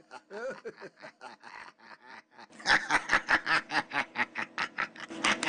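Rapid snickering laughter, a quick run of short high-pitched pulses that gets louder and faster about two and a half seconds in.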